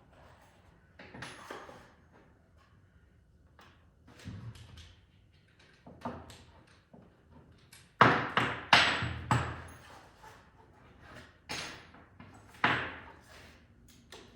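Irregular sharp knocks and bangs on wooden framing lumber, a few soft ones first, then the loudest cluster of about three blows about eight seconds in, and two more shortly after.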